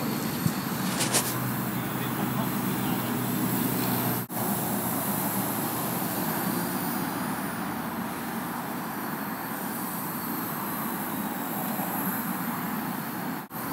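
AR.Drone 2.0 quadcopter's rotors running in flight, a steady hum with outdoor background noise; the sound cuts out briefly about four seconds in and again near the end.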